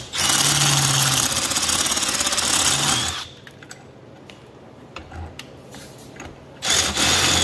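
Cordless drill with a step drill bit cutting through a metal tab held in a vise, enlarging a pilot hole: a loud, steady grinding for about three seconds, a few light clicks, then a second short burst of drilling near the end.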